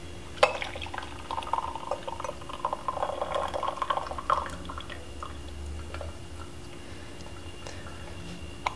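Tea being poured from a porcelain gaiwan into a glass pitcher: a trickling stream starts about half a second in and thins out after about four seconds. A few faint drips follow, and there is a light click near the end.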